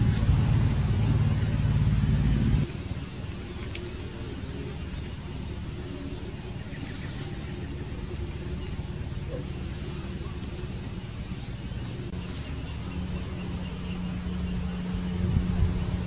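Small wood cooking fire crackling, with a few sparse sharp pops, under a steady low rumble that is much louder for the first few seconds and then drops off suddenly.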